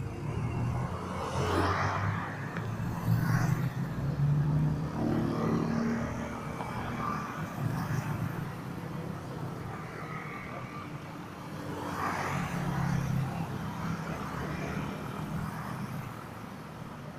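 Street traffic: motorcycle and car engines passing by, swelling about two seconds in and again about twelve seconds in.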